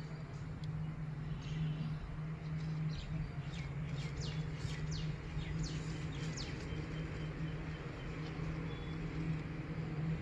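Small birds chirping in quick, falling high calls, clustered from about four to seven seconds in, over a steady low hum.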